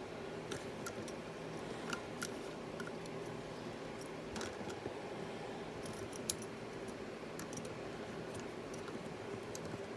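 LEGO pieces clicking and tapping as they are handled and set in place: scattered light clicks, one sharper about six seconds in, over a steady low hum.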